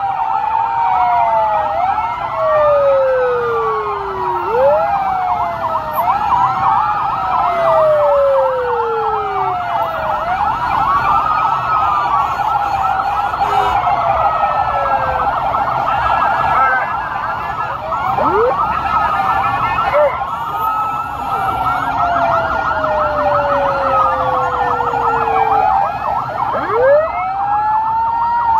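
Several vehicle sirens sounding at once, overlapping: slow wails that rise and then fall away, mixed with fast yelping warbles that are densest in the middle stretch.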